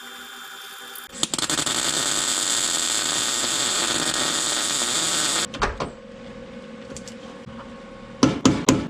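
MIG wire-feed welder running a weld bead: a loud, steady hiss that starts about a second in and stops after about four and a half seconds. Near the end comes a quick run of sharp knocks, several a second.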